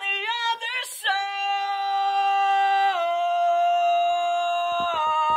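A man singing unaccompanied into a studio microphone: a few short bending notes, a quick breath, then one long held high note for about four seconds that steps down slightly twice.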